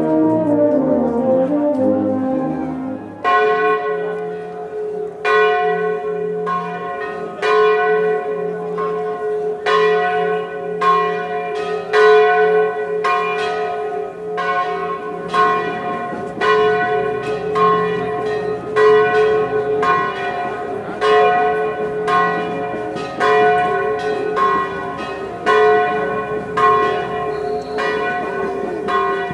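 The last notes of a brass band fade out. About three seconds in, church bells begin ringing, struck over and over at about one to two strokes a second, each stroke left ringing into the next.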